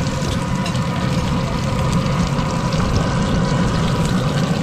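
A steady machine drone: a low rumble with a thin, constant whine above it, running without change.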